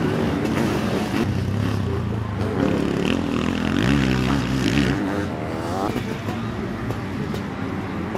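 Sidecar motocross outfits' engines revving as they race past, the pitch rising and falling with the throttle and strongest about four to six seconds in.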